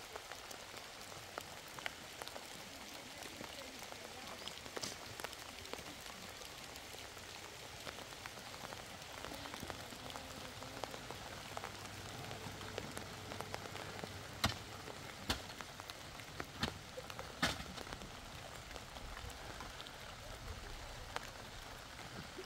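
Steady light rain, an even patter with scattered sharp drop ticks. A few louder sharp clicks or knocks come in the second half.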